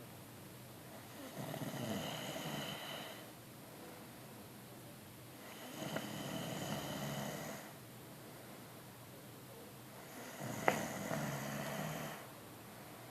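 Slow, steady snoring: three drawn-out snores about four and a half seconds apart, with a short sharp click at the start of the third.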